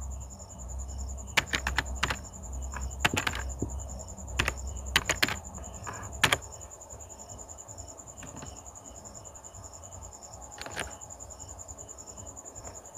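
Scattered single clicks of computer keys and a mouse, a few close together, with a longer gap in the middle and a quick run near the end. Under them is a faint steady high whine with a faint pulsing chirp.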